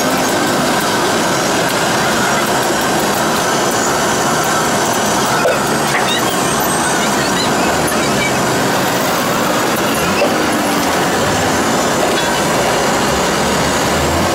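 Steady, loud background din with no clear rhythm or pitch, and two faint knocks about five and ten seconds in.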